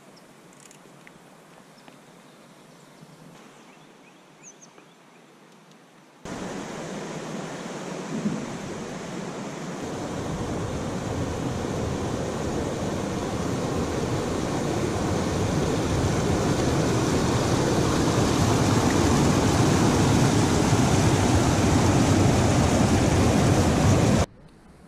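A steady rushing noise starts suddenly about six seconds in, grows steadily louder, and cuts off abruptly near the end; before it there is only faint background.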